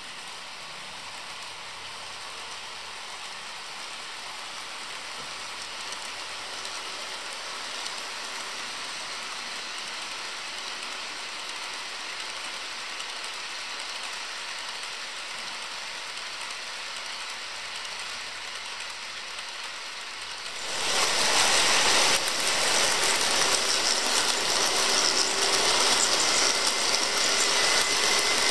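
HO scale model trains running on sectional track: a steady whirr of the small motors and metal wheels on the rails. About twenty seconds in it turns suddenly much louder as a string of model diesel locomotives passes close by.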